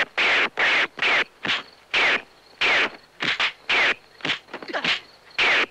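Film sound effects of fists and arms whooshing through the air in a kung fu fight: a fast string of about a dozen short swishes, each falling slightly in pitch, with brief gaps between them.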